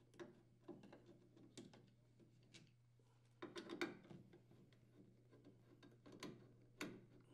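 Faint clicks and scrapes of a nut driver turning out a metal mounting screw from a refrigerator's water filter housing, as scattered ticks with a busier run of them about halfway through.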